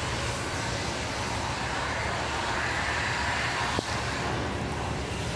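Steady background road-traffic noise, swelling a little in the middle, with a single sharp click about four seconds in.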